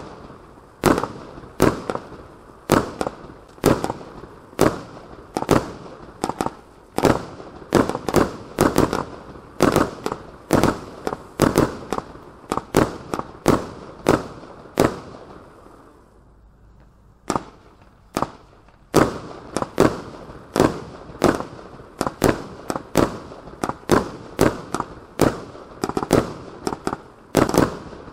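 A 30 mm, 75-shot Redheat Willow fireworks cake firing, a rapid series of sharp bangs shot after shot. A little past halfway the firing pauses briefly, then the bangs resume.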